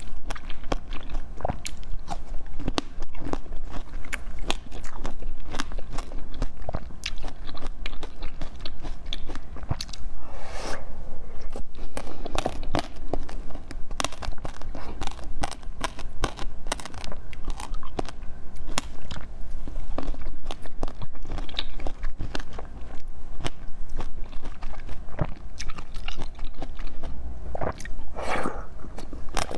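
Close-miked eating sounds: chewing, biting and crunching with many sharp mouth clicks, and a longer slurping sound about ten seconds in and again near the end as liquid is drunk from a shell cup.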